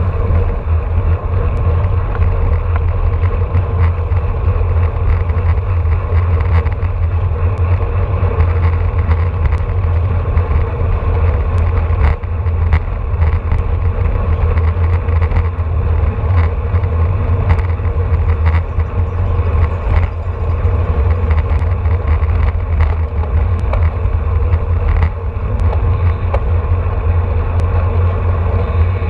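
Wind rumbling over the microphone of a camera on a road bike racing at about 22 to 29 mph, mixed with tyre and road noise and scattered small clicks and rattles from the bike.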